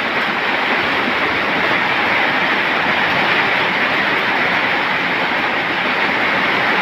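A loud, steady rushing noise that does not change, with no distinct barks or growls standing out.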